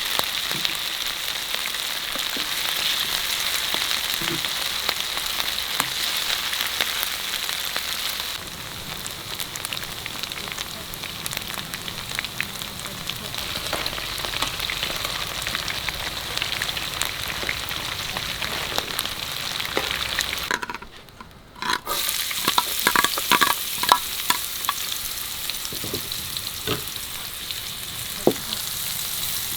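Food frying in a pan with a steady crackling sizzle. About two-thirds through it cuts out for a moment, then returns with utensil clicks and scrapes as the food is stirred.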